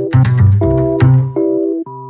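Background electronic music: held keyboard chords that change every half second or so over a bass line, with sharp percussion hits.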